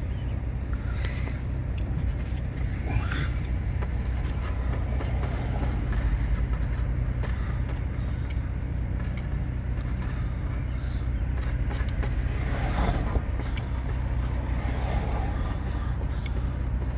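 Long CSX intermodal freight train rolling past, its cars making a steady low rumble, with a few brief higher-pitched screeches.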